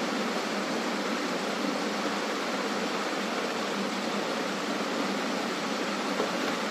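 Steady rushing noise of a ceiling fan running, with no change in level.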